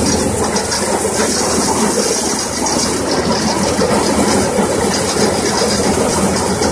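Belt-driven multicrop thresher running under load, its threshing drum and blower fans making a steady, dense mechanical clatter as crop is fed through and straw and chaff are blown out.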